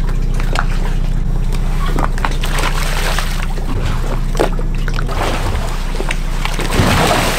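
A boat engine running steadily at idle, with water sloshing and short knocks of dive gear handled on a deck.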